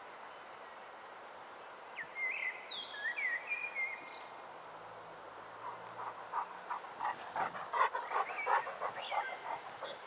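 Birds chirping in short calls for a couple of seconds, then a dog breathing quickly and audibly close to the microphone, many short breaths a second, as it noses through the grass.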